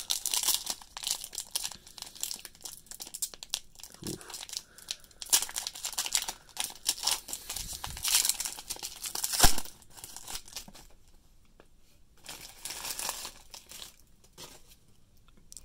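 Foil trading-card pack wrapper crinkling and tearing as it is opened by hand, in irregular crackly bursts with one sharp loud crackle about nine seconds in, thinning out over the last few seconds.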